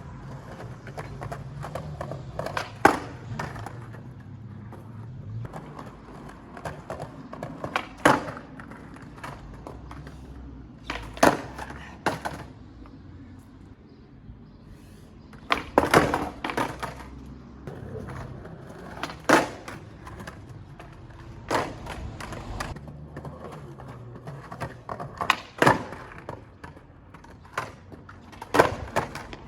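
Skateboard wheels rolling over hard ground with a steady low rumble, broken about eight times by sharp loud clacks of board pops and landings.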